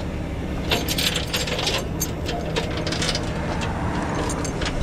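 Tow chains clinking and rattling in short bursts as they are handled, over the steady hum of the tow truck's idling engine.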